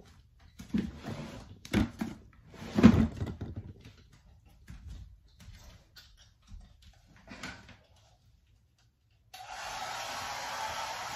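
A few thumps and some rustling, the loudest thump about three seconds in, then about nine seconds in a handheld hair dryer switches on and runs steadily.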